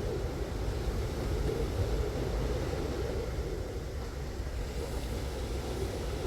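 Strong wind buffeting the microphone while wingfoiling, a steady low rumble with no breaks.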